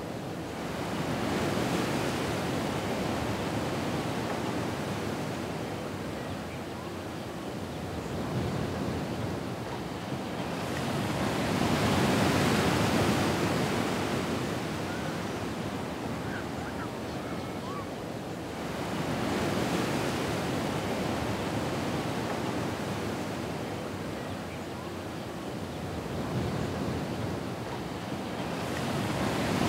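Ocean surf: waves washing in, the sound swelling and easing in slow surges every eight to ten seconds, the loudest a little under halfway through.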